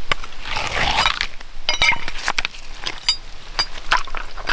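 Loose wet creek stones clinking and knocking together as they are picked through by hand: a string of short, sharp clicks over trickling water.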